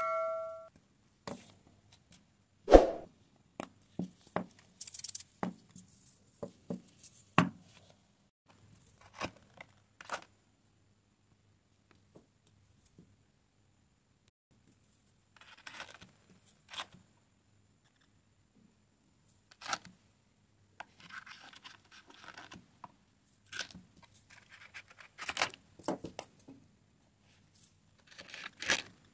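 Small plastic vials, resealable bags and resin diamond-painting drills being handled. Scattered clicks, taps and brief rustles come with quiet gaps between them as the vials are filled and set into a plastic storage case.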